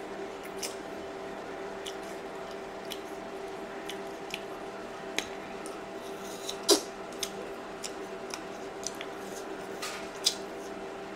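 Close-miked eating of caramel-dipped apple slices and grapes: scattered small wet clicks and chewing smacks, with a louder click about two-thirds of the way in and another near the end, over a faint steady hum.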